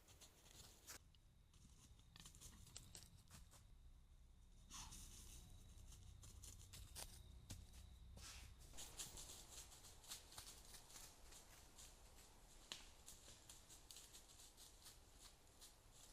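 Near silence with faint, scattered clicks and rustles, most of them in the middle of the stretch.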